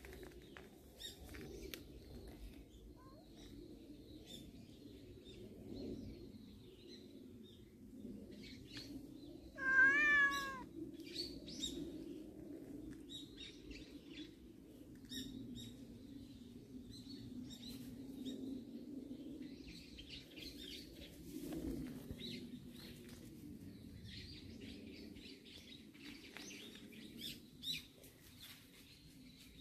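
A cat meows once, a single wavering call about a second long, about ten seconds in. Faint bird chirps and small rustles run under it.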